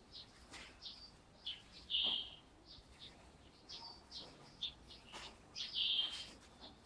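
Small birds chirping in the background: many short high chirps, with two louder bursts of chirping about two seconds in and near the end.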